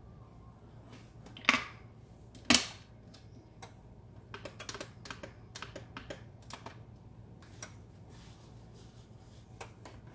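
Two sharp knocks about a second apart, then a run of light clicks and taps: small bottles and containers being handled on a kitchen shelf, over a low steady hum.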